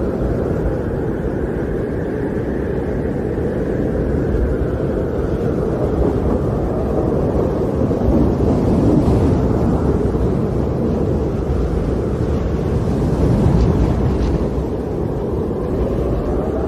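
Strong snowstorm wind blowing steadily, its howl slowly rising and falling in pitch.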